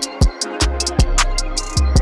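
Background music with a steady drum beat: deep kick drums that drop in pitch, and quick hi-hat ticks.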